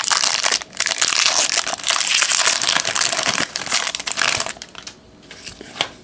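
Wrapper of a Bowman baseball trading-card pack crinkling as it is torn open and pulled off, for about four and a half seconds, then softer clicks and slides as the cards come out.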